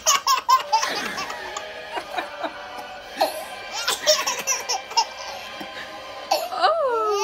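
A baby laughing hard in quick, repeated bursts of belly laughter.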